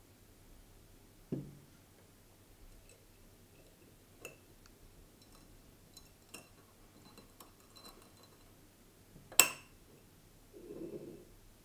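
Glassware and kitchen utensils being handled: a dull knock about a second in, a few faint clicks, then a sharp glass clink about nine seconds in, followed by a short muffled sound.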